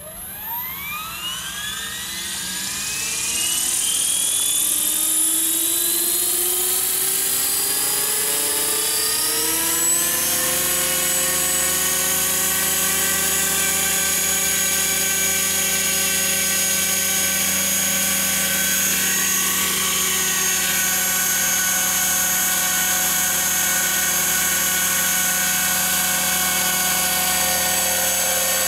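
Radio-controlled scale MD500D helicopter spooling up: a whine that rises in pitch for about ten seconds, then holds steady while it lifts into a low hover.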